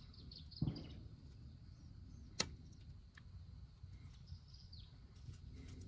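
Faint hand handling of a plastic bracket being forced onto the aluminium side tube of a new A/C condenser, with a soft knock just under a second in and one sharp click about two and a half seconds in.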